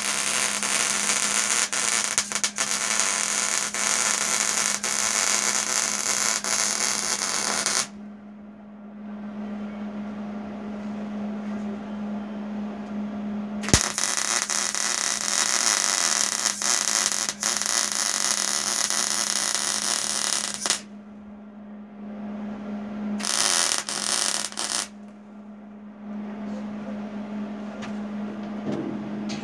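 Hobart welder's arc crackling and sizzling as stitch welds are laid on a steel grill box: a long bead of about eight seconds, a pause, a second bead of about seven seconds, then a short burst of a second or two. A steady low hum carries on through the pauses.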